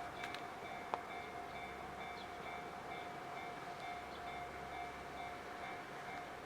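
Japanese level crossing's warning bell ringing continuously, a ringing tone that repeats in a quick, even rhythm. A single sharp click about a second in.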